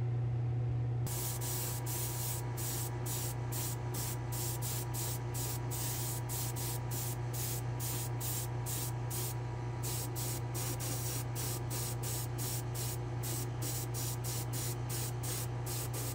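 Airbrush spraying silver sealer onto a diecast truck body in rapid short bursts of hiss, about three a second, starting about a second in, over a steady low hum.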